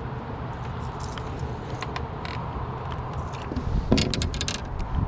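A steady low motor hum, with a quick run of sharp clicks and knocks about four seconds in.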